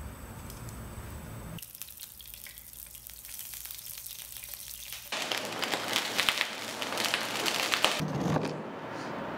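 Mushrooms sizzling and crackling in hot olive oil in a frying pan. The sizzle starts about a second and a half in, gets much louder around five seconds in and eases off near the end.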